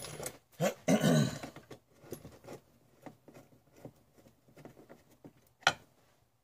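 Light clicks and taps of hands and a screwdriver working the metal frame of a folding camp chair on a wooden workbench, with one sharp knock near the end. A short wordless vocal sound from the man about a second in.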